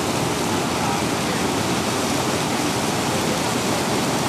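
Floodwater rushing steadily over a tank's stone overflow weir, a continuous even roar of falling water.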